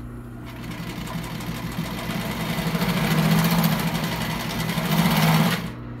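Juki LU-563 walking-foot industrial sewing machine sewing: its servo motor starts about half a second in and builds to a fast, even clatter of stitches, then stops abruptly near the end. A steady hum runs underneath.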